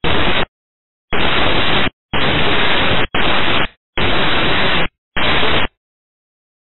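Air-band radio static in short bursts from an air traffic control recording: about six hissing bursts, each under a second, chopped apart by dead silence as the squelch opens and closes on transmissions with no words in them.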